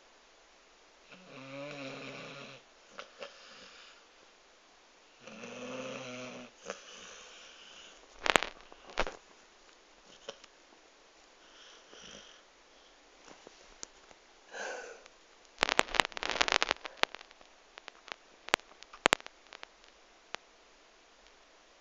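A sleeping Staffordshire bull terrier snoring: two long snores about four seconds apart. In the second half come a short breathy snuffle and a run of sharp clicks and knocks, which are the loudest sounds.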